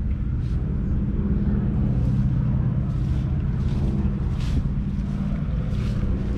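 1955 Scammell Explorer's 10.7-litre six-cylinder diesel engine idling steadily.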